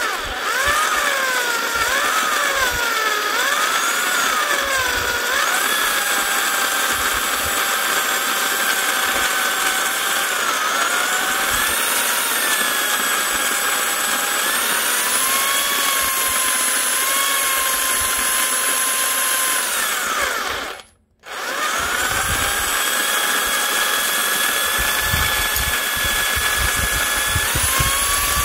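Bosch electric drill running a hand coffee grinder through a drill adapter, grinding coffee beans: a steady motor whine whose pitch wavers for the first few seconds. It stops for about a second around two-thirds of the way through, then starts again.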